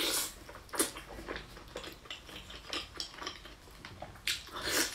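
Close-up mukbang eating sounds: a person biting, sucking and chewing soft braised meat held in the hands. It comes as short, irregular wet smacks and slurps.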